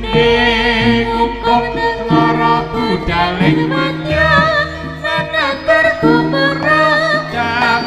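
Live Javanese jaranan music: an ensemble of drums, gongs and other percussion under a high melody that wavers strongly in pitch.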